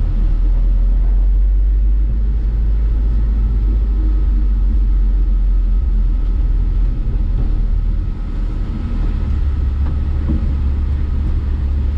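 1970 Chevy C10 pickup driving, heard from inside the cab: its straight-six engine and road noise make a steady, deep drone that dips slightly about eight seconds in.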